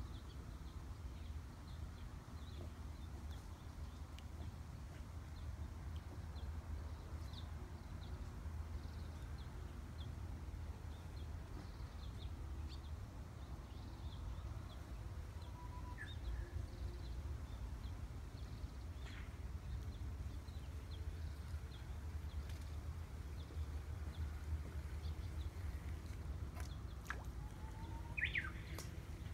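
Quiet outdoor ambience by still water: a steady low rumble with faint, scattered bird chirps, and a few sharp clicks and a short call near the end.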